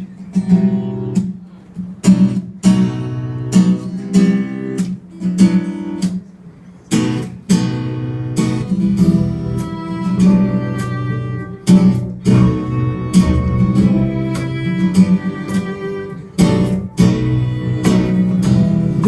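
Acoustic guitar strummed as a song's instrumental intro. The chords are spaced out at first, then settle into steadier, fuller strumming about seven seconds in.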